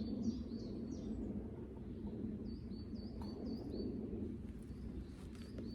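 Small woodland birds calling: runs of short, high chirping notes, a few a second, coming in bursts near the start, in the middle and again at the end, over a steady low background rush.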